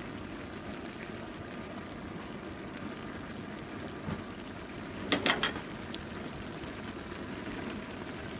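Mushrooms, onion and butter simmering in a pan, a steady bubbling and sizzling. A brief cluster of sharp clicks comes about five seconds in.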